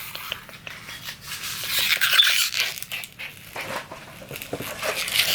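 Rustling and crinkling of paper or plastic, with light clicks and knocks, swelling and fading a few times as paper scraps and a small trash bin are handled.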